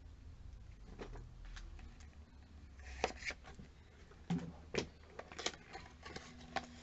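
Scattered light clicks and knocks of small items and packaging being handled, several of them in the second half, over a low steady hum.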